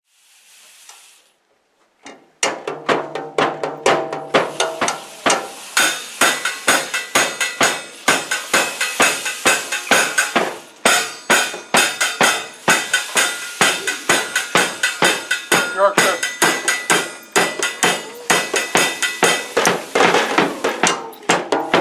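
Millenium drum kit played with sticks in a steady, driving beat, starting about two seconds in, with cymbal and snare strokes in an even rhythm and pitched tones beneath.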